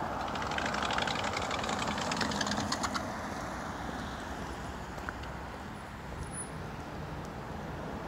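Road traffic on a wet street: steady road noise, louder for the first three seconds with a quick run of faint ticks, then settling to a lower steady rumble.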